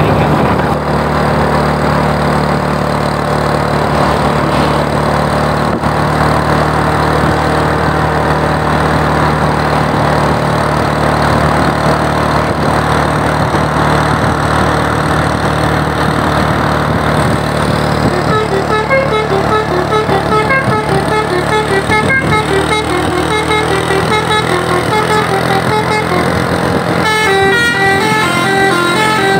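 Basuri "telolet" multi-tone bus horn on an Adiputro Jetbus 5 coach playing a fast tune of short, stepping notes, starting about two-thirds of the way in and moving to higher notes near the end. Under it, the coach's engine runs with a steady low hum.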